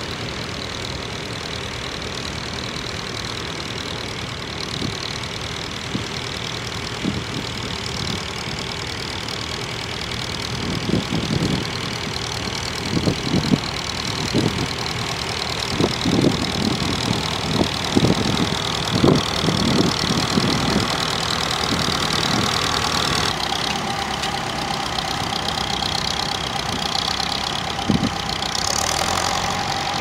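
Vintage grey Ferguson tractor's engine running steadily under load while pulling a mounted plough, coming closer and a little louder. From about ten seconds in it is joined by irregular low thumps.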